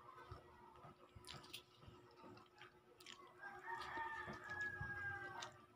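A rooster crowing once, a single long call of about two seconds starting a little past halfway. Before it, faint clicks from eating noodles with a fork.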